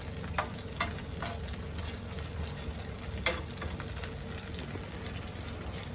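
Ginger roasting in a little desi ghee in a non-stick frying pan, a soft sizzle with a few sharp clicks of the stirring spoon against the pan, the loudest a little past halfway, over a steady low hum.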